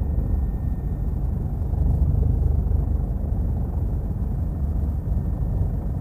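Helicopter in flight heard from inside the cabin: a steady low drone of rotor and engine with a fast, even rotor beat.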